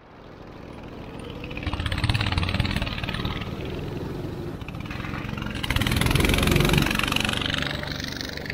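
Go-kart engine running at speed, fading in and swelling louder twice.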